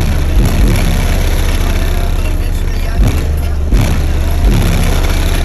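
Very loud bass-heavy music played through a car audio system of twelve 12-inch subwoofers. Deep, sustained bass notes shift in pitch, with several sliding bass drops.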